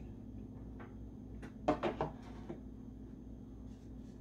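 Light knocks and a short clatter of a small ceramic dessert bowl being set upside down on a tray, the loudest cluster of knocks about two seconds in.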